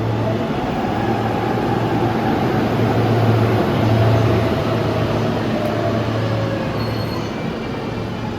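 E531-series electric train creeping forward a short distance along the platform: running and motor noise with a low hum and a faint whine that slowly falls in pitch, swelling to its loudest a few seconds in.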